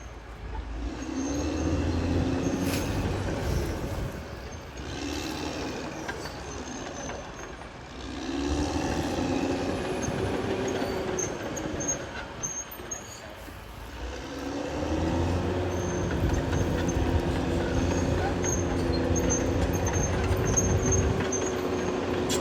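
Caterpillar D6R XL crawler bulldozer's diesel engine working, swelling three times as it takes load, its pitch rising and easing off each time; the third surge, about fifteen seconds in, holds steady longer.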